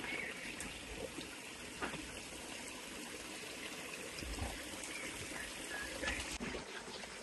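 Shallow stream trickling steadily over stones, with a few faint knocks and rustles of handling.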